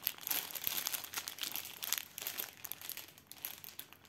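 Clear plastic wrapping around a bundle of small bags of diamond painting drills crinkling as it is handled and turned in the hand, busiest in the first couple of seconds and sparser after.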